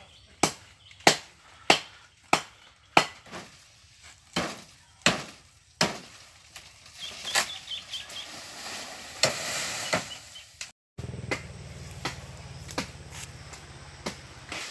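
A blade chopping into a tree, with blows coming steadily at about one and a half a second for the first six seconds and then fewer. A rustle of leaves comes in the middle. After a break about eleven seconds in, a few more blows sound over a low steady hum.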